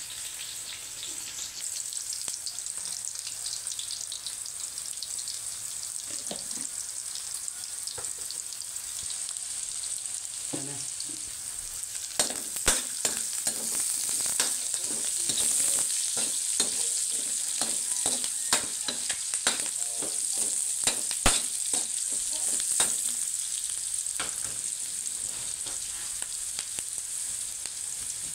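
Sliced onions and garlic sizzling in hot oil in a metal wok, a steady high hiss as the aromatics are sautéed. Through the middle a spatula is stirring, scraping and knocking against the pan in quick clicks, the loudest sounds here.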